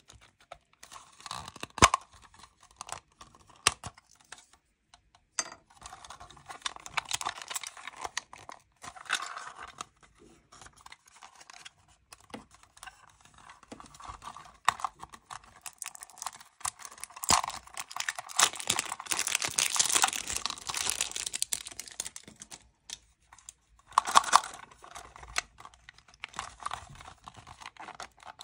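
Handling of a small plastic toy gumball machine: plastic crinkling and tearing in irregular stretches, with sharp clicks of the hard plastic dome and body, busiest about two-thirds of the way through.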